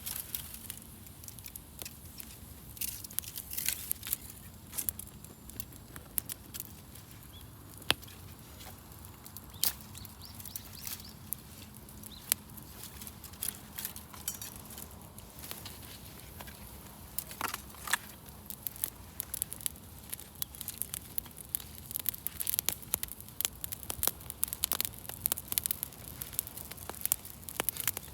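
Wood campfire crackling, with frequent irregular sharp pops and snaps that grow busier in the second half.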